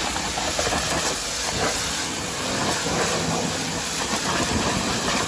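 Hyundai HYB80 electric pressure washer running, its jet hissing steadily as it sprays water onto a car's tyre and alloy wheel.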